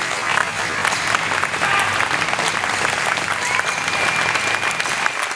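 Audience clapping and cheering after a taekwondo board-breaking demonstration, with a long high whistle rising in about three and a half seconds in and holding for over a second.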